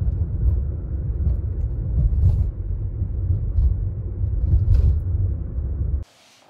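Road noise inside a moving car: a steady low rumble, with a few faint ticks, that cuts off suddenly near the end.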